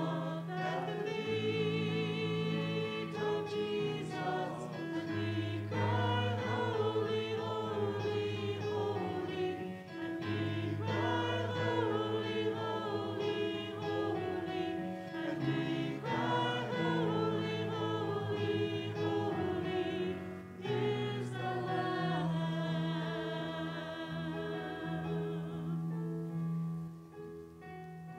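Voices singing a slow worship hymn in unison over long, held low instrumental notes. The singing fades away near the end.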